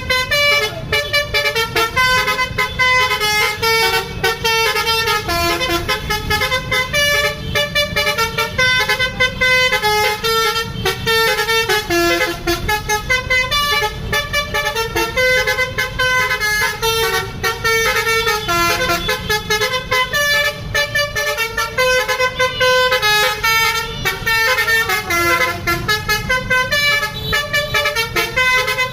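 Bus 'telolet' basuri musical horn playing a fast melody, its notes stepping up and down several times a second without a break.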